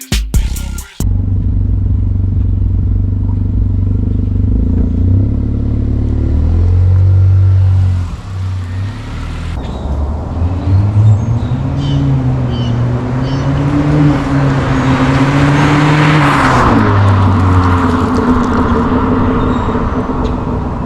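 Acura Integra's turbocharged four-cylinder engine running through an EOS axle-back exhaust, its note slowly rising and falling as the car is driven, easing off briefly about eight seconds in.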